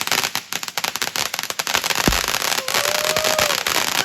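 Ground firework crackling: a dense, rapid string of sharp pops, with one deeper thump about two seconds in. A brief steady tone sounds over the crackle about three seconds in.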